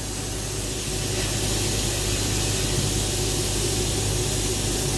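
Sandblast cabinet's gun blasting 60-mesh aluminium oxide grit onto a metal tube: a steady hiss over a steady low hum, growing a little louder about a second in.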